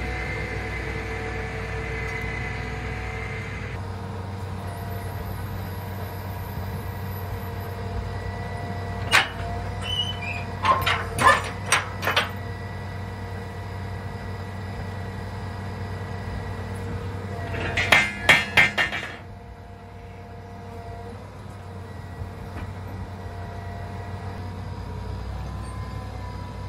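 John Deere tractor's diesel engine idling steadily, with sharp metallic clinks and knocks over it: one about a third of the way in, a quick run soon after, and a tight burst of about five some two-thirds through, just before the engine sound gets a little quieter.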